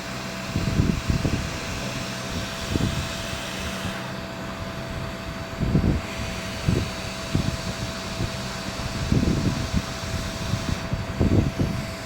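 Steady whirring of a fan blowing air, with a faint steady hum running through it and a few irregular low thuds.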